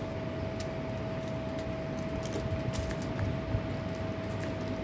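Faint scattered clicks and crinkles of fingers picking food off a foil-lined table while eating by hand, over a steady background hum with a constant high whine.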